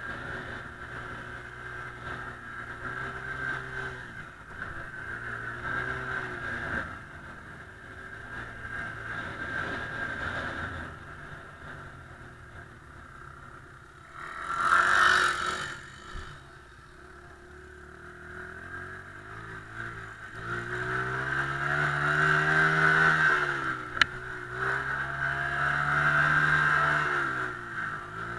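Small dirt bike engine being ridden, revving up and down with the throttle and running harder in the last part. A loud rushing noise lasts about a second halfway through, and there is one sharp click near the end.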